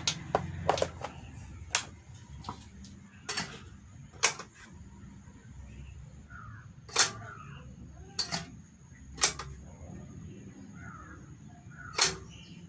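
Irregular sharp clicks and knocks, about a dozen, over a steady low hum, with a few faint short calls in the background.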